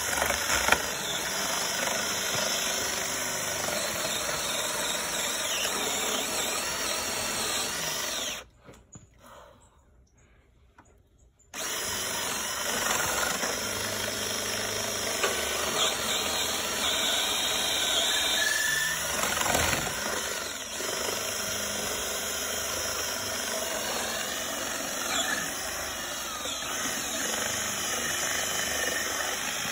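Cordless drill running steadily under load as a long bit bores a bolt hole through a wooden beam. It stops for about three seconds about eight seconds in, then runs again.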